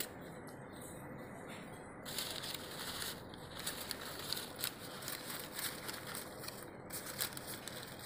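Crumpled packing paper crinkling and rustling as hands pull it out of a shoebox, starting about two seconds in as a dense run of small crackles.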